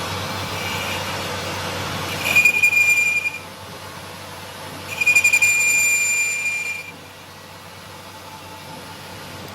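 Metal-on-metal squealing, typical of a cutting tool or grinder on steel: two high-pitched squeals over a steady machine hiss. The first, a couple of seconds in, lasts about a second; the second, about halfway through, lasts nearly two seconds.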